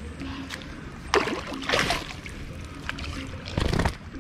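Water splashing as a hooked fish thrashes at the surface beside the boat, in two bursts: one about a second in and a shorter one near the end, over a steady low rumble.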